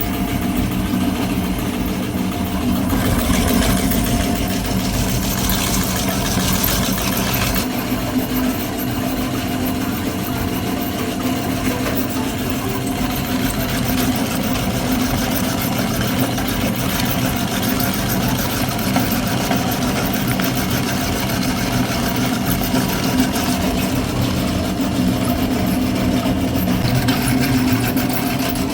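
Meat grinder motor running steadily with a constant hum, with rougher grinding noise added for a few seconds near the start.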